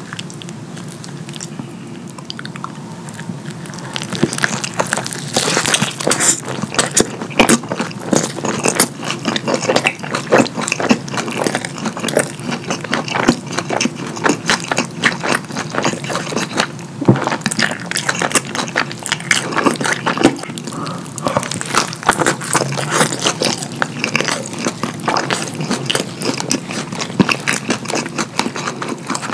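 Close-miked wet eating sounds of food dripping with cheese sauce: fast, irregular smacking and squelching chewing that starts about four seconds in, after a quieter stretch while the food is dipped in the sauce.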